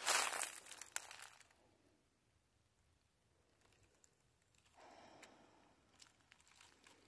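Footsteps crunching in dry fallen leaves: one step right at the start, then about three seconds of near stillness, then faint leaf rustling.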